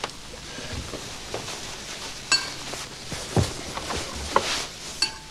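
Cutlery clinking against china dishes as a family eats at a dinner table: scattered separate clinks, a couple of them ringing briefly.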